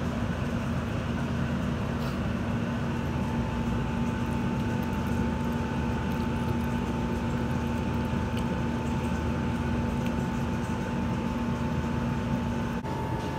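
A steady mechanical drone with a constant low hum. A second, higher steady tone joins about three seconds in. The low hum cuts out just before the end.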